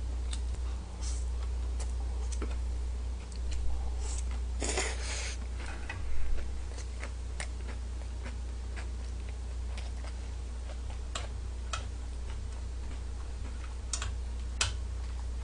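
Eating sounds from a man eating stir-fried udon noodles: slurping and chewing, with scattered small clicks over a steady low hum.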